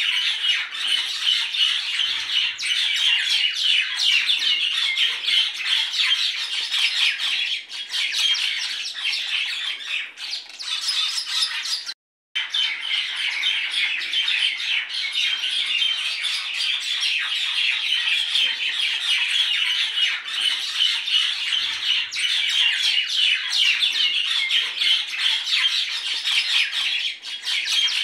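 Many birds chattering and squawking continuously in a dense, steady chorus, cut off abruptly by a moment of silence about twelve seconds in before resuming.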